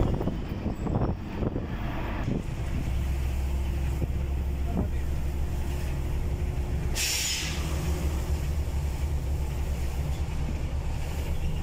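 Truck engine running steadily under way, a low drone heard from inside the cab, with a few knocks in the first two seconds. About seven seconds in comes a short burst of air hiss.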